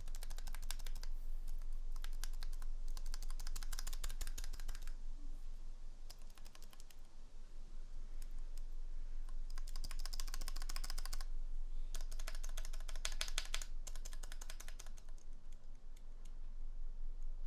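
Typing in quick bursts on a KBD67 MKII mechanical keyboard, testing its sound with freshly relubed stabilizers. Runs of rapid key clacks come in several spells, with a lull about a third of the way in.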